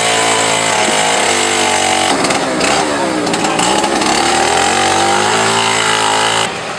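A small petrol engine running hard, its pitch rising and falling as it is throttled up and down, then dropping away suddenly near the end.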